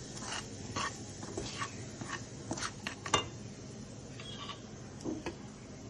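A metal stirring utensil clinking and scraping against a cooking pan while spices are stirred in a little hot oil: a string of short, irregular clinks, roughly two a second.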